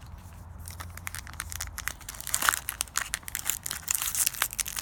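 Plastic wrapper of a Topps baseball card pack crinkling and crackling as it is handled and torn open. It starts about half a second in, grows louder, and is dense with sharp crackles, loudest about halfway through.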